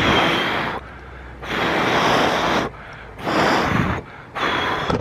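Sandpaper rasping over the painted body of a Toyota MR2 in four long hand strokes, about one every second and a half.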